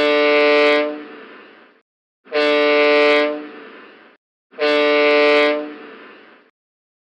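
Vessel's horn sounding three short blasts of about a second each, evenly spaced with a fading echo after each. These are short-blast manoeuvring and warning signals for vessels in sight of one another.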